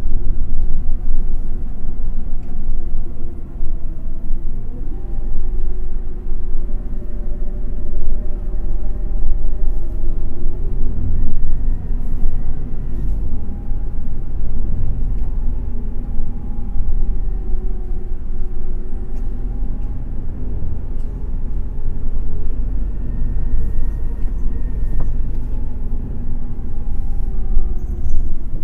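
Toei city bus heard from inside the cabin while running: a steady low engine and road rumble, with a drivetrain whine that rises and falls in pitch several times.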